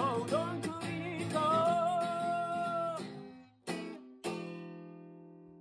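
A man singing to his own acoustic guitar. A long held sung note ends about three seconds in, then two strummed chords follow, the last left ringing and fading away.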